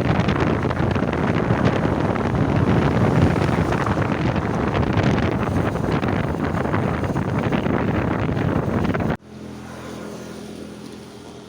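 Wind buffeting the microphone over vehicle road noise while travelling. It cuts off abruptly about nine seconds in, giving way to a much quieter steady low hum.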